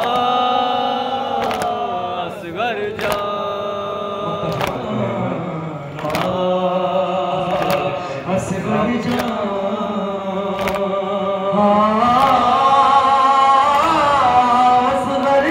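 Male voices chanting a Shia noha (mourning lament) through microphones and loudspeakers, with long held and sliding notes. A sharp slap about every second and a half keeps the beat, from mourners striking their chests in matam.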